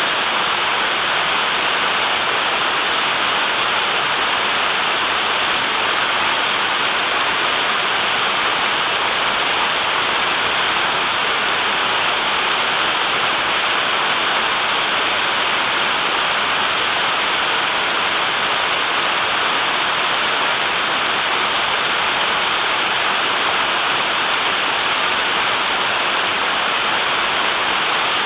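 Small waterfall with water flowing strongly, making a steady, even rush.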